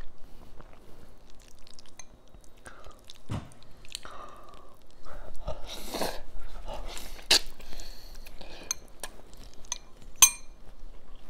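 Close-miked eating of instant ramen noodles: wet chewing and small mouth clicks, with a slurp of noodles about six seconds in. Near the end comes one sharp, ringing clink of a metal fork against a glass bowl.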